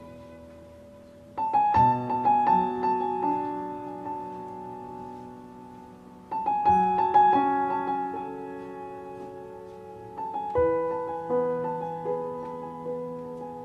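Background piano music: three phrases of struck notes that ring and fade, the first about a second and a half in, the next about halfway, and the last near the end.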